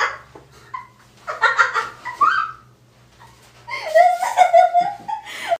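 High-pitched giggling laughter in two bouts, one about a second in and a longer one near four seconds.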